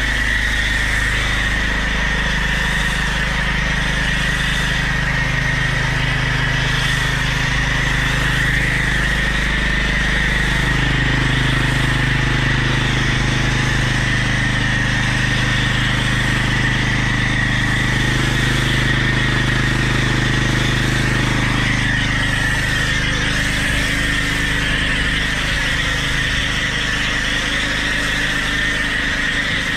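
Karcher K4 pressure washer spraying snow foam through a foam lance: a steady hiss of spray over the running hum of the washer and the petrol generator powering it. The pitch of the hum shifts a few times.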